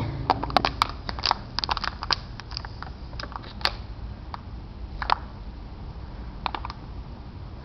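Thin plastic water bottle and plastic wrap crackling and clicking in the hands as the cap is twisted down tight. A dense run of crinkles in the first two or three seconds, then scattered single clicks.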